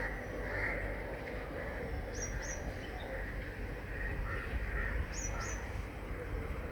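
Birds calling over a steady low rumble: a pair of short, sharp high-pitched calls twice, about three seconds apart, with softer, lower calls in between.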